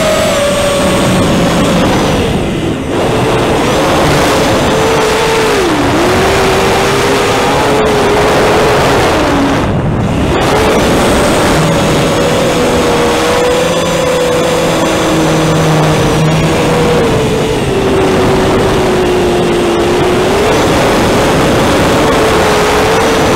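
An FPV quadcopter's LHI DX2205 2300KV brushless motors and Racekraft 5051 propellers buzz loudly through the onboard camera's microphone. The whine rises and falls with the throttle and drops away briefly about three seconds in and again about ten seconds in.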